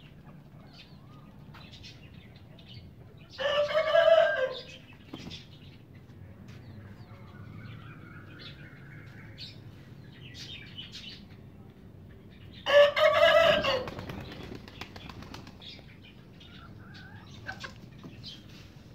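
Backyard chickens, with one bird giving a loud, pitched call twice, about nine seconds apart and each a little over a second long. Faint scratching and small calls fill the gaps.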